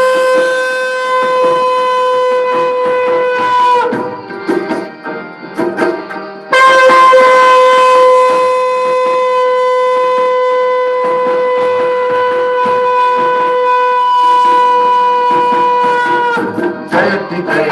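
A long, steady, wind-instrument-like note held at one pitch, breaking off with a slight downward bend about four seconds in, then sounding again after a short, quieter gap for about ten seconds. Near the end, singing with tabla and other drums comes in.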